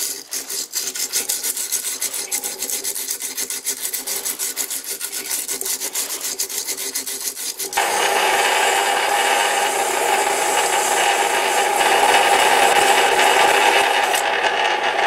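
120-grit sandpaper held by hand against a metal workpiece turning in a lathe, polishing out damage. It starts as a fast, even scratching and changes about eight seconds in to a louder, steady rasp.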